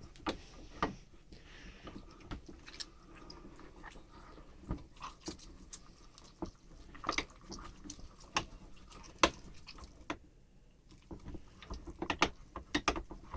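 Irregular clicks, knocks and clatter of kitchen utensils and a hand meat grinder being handled while making ham salad, with the sharpest knocks about seven and nine seconds in and a quick run of them near the end.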